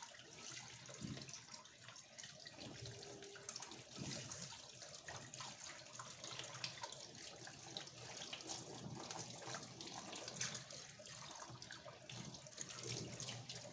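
Tap water running into a sink while a whole fish is rinsed by hand under it, with small splashes and knocks throughout.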